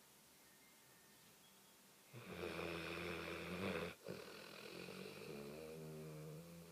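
A sleeping dog snoring: after a quiet pause, one loud rasping snore starts about two seconds in. It breaks off briefly, then runs on as a softer, steadier pitched snore.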